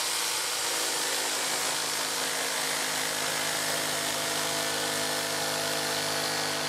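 Corded Makita jigsaw cutting through a thick sheet of 5 mm acrylic, its motor running steadily at constant speed.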